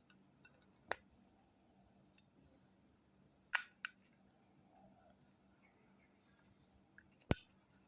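Zippo lighter's metal case and brass-plated insert clinking as the lighter is handled: three separate sharp metallic clinks with a short ring, about a second in, in the middle and near the end.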